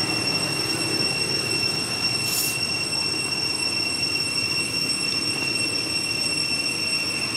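A steady high-pitched whine with a rough low hum beneath it, and a brief hiss about two seconds in.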